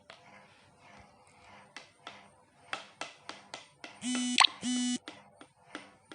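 Scattered small clicks and rattles of peanuts roasting in hot powdered salt in a pan. About four seconds in, two short electronic beeps, with a sharp crack between them.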